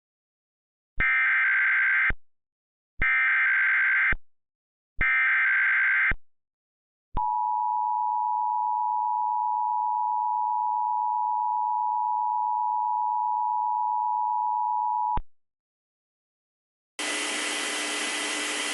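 Emergency Alert System tones: three one-second bursts of warbling SAME header data, then the two-tone EAS attention signal (853 and 960 Hz together) held steady for about eight seconds and cut off. About two seconds before the end, a steady hiss of static with faint held tones begins.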